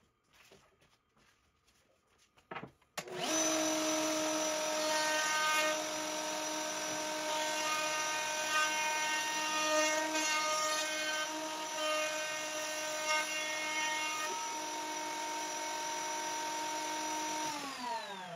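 Table-mounted router switched on about three seconds in, running with a steady whine while the edge of an oval wooden sign is fed around the bit. It is switched off near the end and winds down, its pitch falling.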